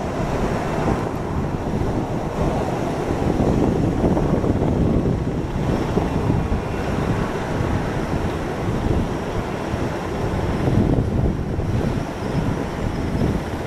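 Wind buffeting the microphone: a gusty low rumble that swells and eases several times, with no clear engine tone.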